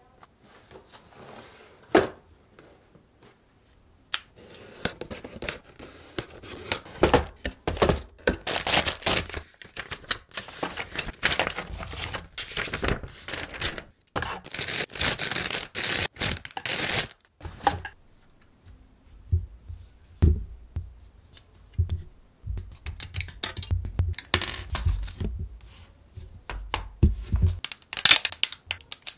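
Paper and plastic packaging of a plastic model kit being handled: the cardboard box opened, instruction sheets and runner bags rustling, crinkling and tearing, with a sharp click about two seconds in.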